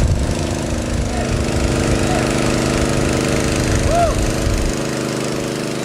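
Airboat engine running steadily, with uneven low rumble from wind on the microphone. A brief chirp sounds about four seconds in.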